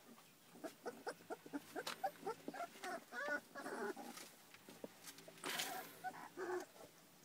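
Puppies whimpering and squeaking in a quick run of short, high, wavering calls, with a brief rustle near the end.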